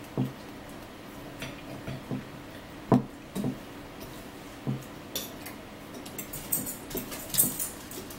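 Fork clicking and scraping against a plate during a meal: scattered short knocks and clinks, the loudest about three seconds in, with a quicker run of sharp clicks near the end.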